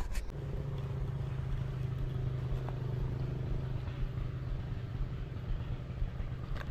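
A small engine running steadily at an even speed, its low hum setting in just after the start.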